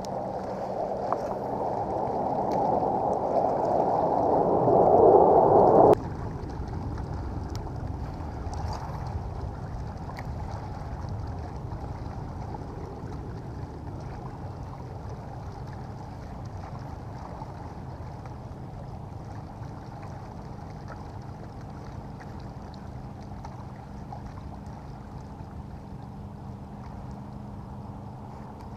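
Water washing against a kayak's plastic hull, growing louder and then cutting off sharply about six seconds in, followed by a quieter, steady wash with a faint steady hum underneath.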